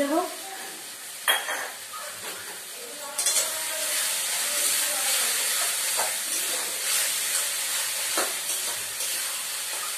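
Spiced onion-tomato masala sizzling in hot oil in a metal karai, with sugar just added, while a spatula stirs and scrapes it against the pan a few times. The sizzling grows louder about three seconds in.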